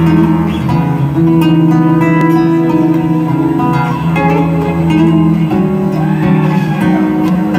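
Live amplified electric guitar, loud, holding low sustained notes that change every second or so with picked notes above them, heard through a concert PA from the audience.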